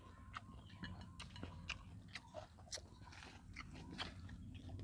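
Faint eating sounds of fried rat: scattered small crunches and clicks of the meat being chewed and pulled apart.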